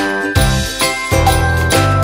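Upbeat background music with jingling bells over a steady beat and bass line.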